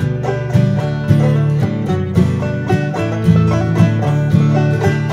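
Instrumental background music: a quick plucked-string tune in a bluegrass or country style, with a steady rhythm of short, bright notes.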